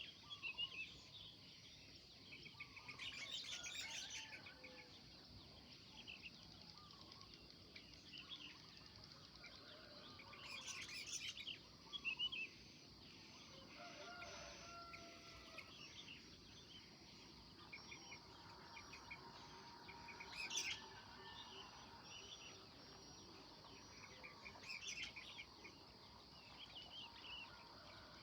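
Faint morning birdsong: small birds chirping on and off, with a few louder runs of rapid chirps spaced through the stretch.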